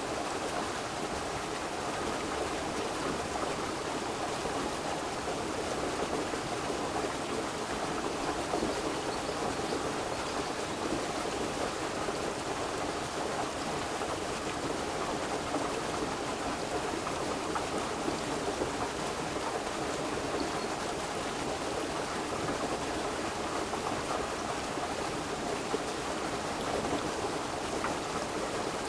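Steady, even rushing of water, unbroken and unchanging throughout.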